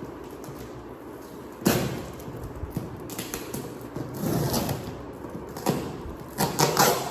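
Handling noises of packaging being opened: a sharp crackle or knock about a second and a half in, rustling a little past the middle, and a quick run of crinkles and knocks near the end.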